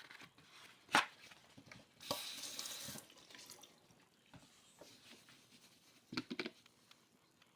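Sink tap running for about a second, with a sharp knock before it and a few more knocks around six seconds in, as things are washed at the sink.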